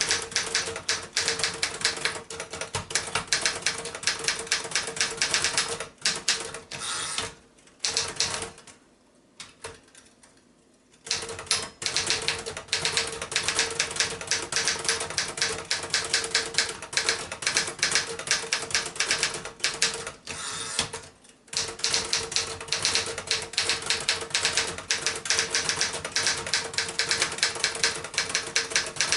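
1966 Remington Personal-Riter manual portable typewriter being typed on: fast runs of key strikes, with a pause of a couple of seconds about a third of the way in and a brief break about two-thirds through.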